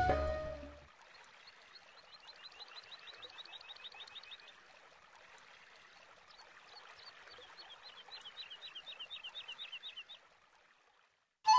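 Outdoor ambience of a bird calling in two quick runs of short, repeated chirps, over a faint steady hiss. Flute background music fades out in the first second.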